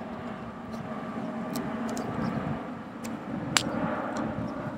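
Airplane flying overhead, a steady low drone, with one sharp click about three and a half seconds in.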